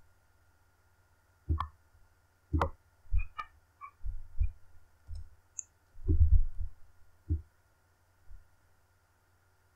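Computer mouse clicks and dull low knocks on the desk, scattered and irregular: sharp clicks at about 1.5 to 3.5 seconds in and a cluster of low knocks around six seconds in, over a faint steady electrical hum.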